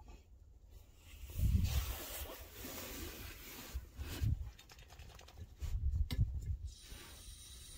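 Jacket rustling and low thumps as a person settles into a car's cargo area, then a quick run of lighter clicks about six seconds in as a small canister gas stove is being lit.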